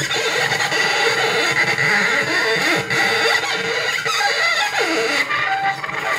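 Experimental improvised music on invented instruments: dense scraping and squealing friction sounds from a strung bow and a strip drawn across it, with several held high pitches and a falling glide about five seconds in.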